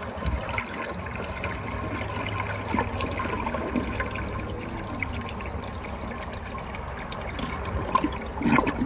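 American Standard Vent-Away toilet flushing: water swirls round the bowl and drains away down the trap, with a trickle from the rim as the bowl empties.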